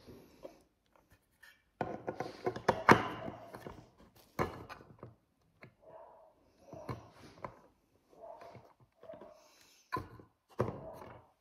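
Small objects being handled and set down on a tabletop: scattered knocks and taps, with a denser stretch of clattering and rustling about two seconds in.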